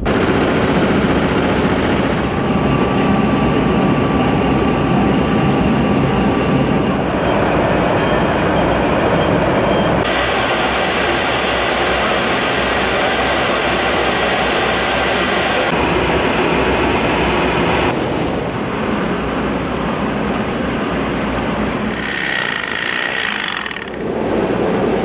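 Rice-mill machinery running: a loud, steady mechanical din that changes character abruptly several times, with faint steady whines now and then.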